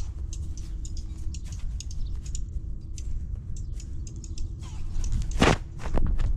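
Rubbing and rumbling on a cat-collar camera's microphone as the cat moves, with rapid small clicks throughout and two loud knocks about halfway through and again near the end.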